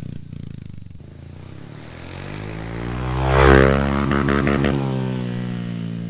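Honda Trail 125's single-cylinder 125 cc engine running through a Yoshimura Cyclone straight-through race exhaust. It builds to its loudest about halfway through, with a short run of crackles just after, then eases off.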